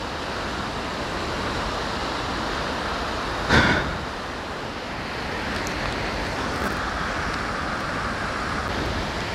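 Water rushing steadily over a low concrete weir and churning white below it, with a short louder burst about three and a half seconds in.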